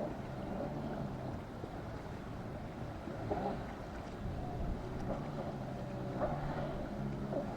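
Boat engines running at low speed, their low hum fading and returning, with wind on the microphone.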